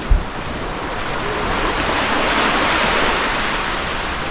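Sea waves breaking and washing up a sandy beach. The surf swells to a peak a couple of seconds in, then eases off. A brief low thump comes right at the start.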